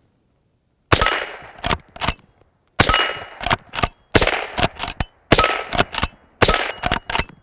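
Five shots from a Henry .22 rimfire lever-action rifle, about one to two seconds apart. Each crack is followed by the ring of a steel plate target and a couple of clicks as the lever is worked.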